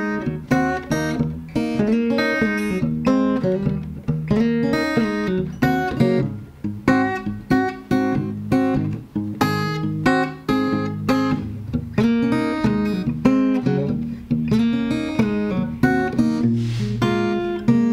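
PRS SE P20-series parlor-size acoustic guitar played solo, mixing single-note licks with strummed chords.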